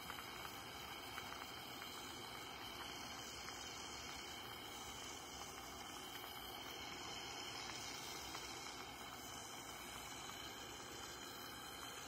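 Faint, steady hiss of a gas torch flame playing into a crucible, melting pewter for a pour.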